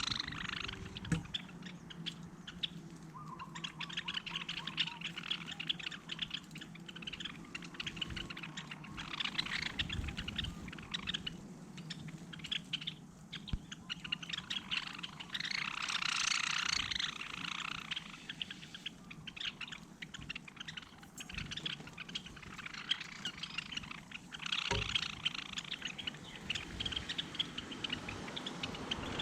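Small birds chirping and twittering in repeated bursts every few seconds, loudest just after halfway. A low steady hum lies underneath for the first part, and there is a single knock near the end.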